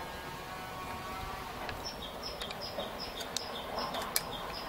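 A small bird calling over faint outdoor background noise: from about two seconds in, a high two-note chirp, the first note stepping down to a lower second one, repeats about three times a second. A few sharp clicks from a screwdriver turning a screw in the case's front panel come in the second half.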